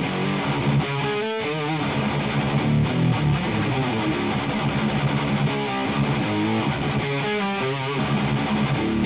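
Electric guitar playing heavy, distorted hardcore riffs through a 100-watt Marshall valve amp, with wavering squealing high notes about a second in and again near the end.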